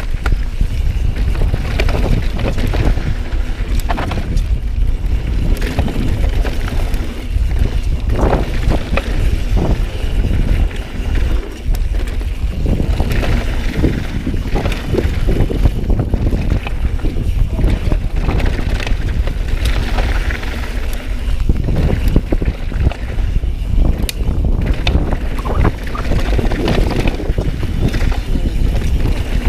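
Wind buffeting the action camera's microphone while riding a downhill mountain bike, with a constant low rumble and scattered knocks and rattles from the bike over rough trail.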